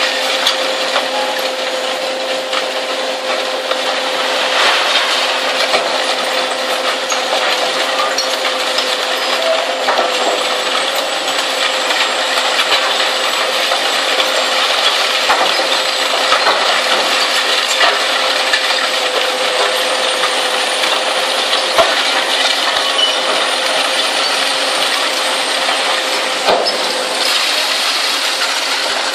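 Zato Blue Devil twin-shaft shear shredder tearing scrap steel: a loud, continuous clatter and clanking of metal pieces over a steady machine hum.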